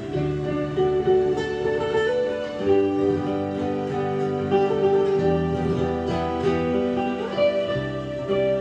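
Gentle instrumental music led by plucked acoustic guitar, with sustained chords changing every second or two.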